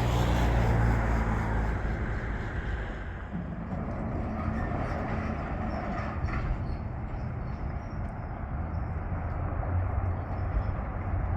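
A motor vehicle's engine rumbling with road noise as it goes by, loudest in the first couple of seconds.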